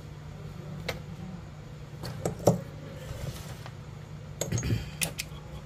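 Light clicks and taps of tweezers and small hand tools on a phone-repair workbench: one about a second in, a sharper pair about halfway, and a quick cluster near the end, over a steady low hum.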